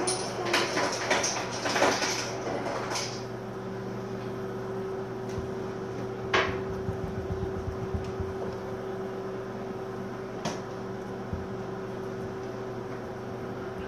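Short knocks, clicks and rustles of small objects being handled, clustered in the first three seconds, then single clicks about six and ten seconds in, over a steady low hum.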